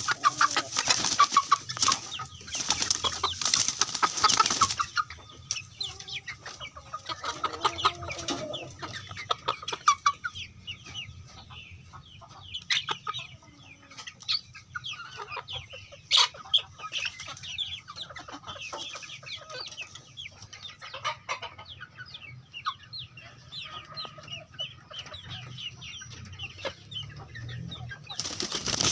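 A flock of young Indonesian native chickens (ayam kampung) clucking and chirping with many short calls. There is loud wing flapping in the first few seconds and again briefly near the end.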